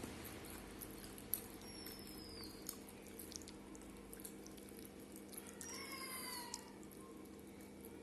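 Small clicks and smacks of eating over a steady low hum. A thin falling whistle comes about two seconds in. An animal call, about a second long with a falling end, comes about six seconds in.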